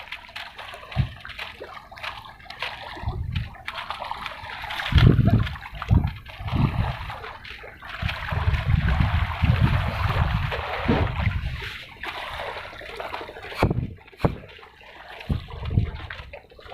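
Water splashing and sloshing, with irregular low rumbling thumps.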